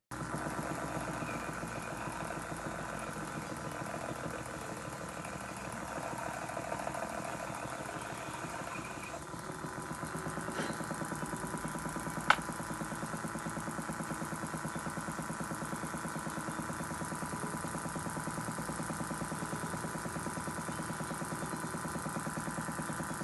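Antique Carlisle & Finch bipolar DC motor running steadily: an even hum with a fast, regular rhythm from the spinning armature and commutator, with a single sharp click about twelve seconds in.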